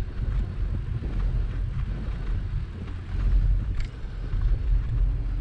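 Wind rumbling on the microphone of a bicycle-mounted action camera while riding over snow, with a small click about four seconds in.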